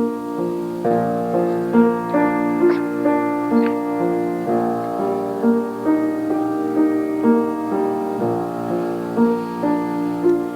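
Slow piano introduction to a song, with held chords and a new note or chord struck about once a second.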